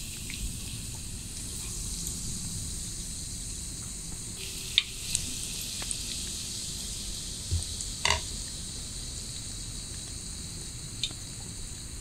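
Breadcrumb-coated rice balls deep-frying in oil at 170°C in a small cast-iron pan: a steady sizzling hiss of bubbling oil, broken by a few sharp clicks, the loudest about eight seconds in.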